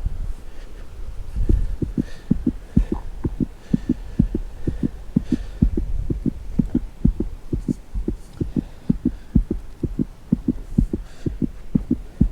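Walking thuds picked up on the microphone: a steady run of dull low thumps, about three to four a second, as the hiker moves along the trail.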